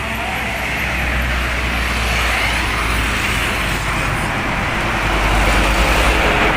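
Road traffic: cars and motorbikes passing on a busy road, a steady rush of engine and tyre noise that swells as vehicles go by, about two seconds in and again near the end.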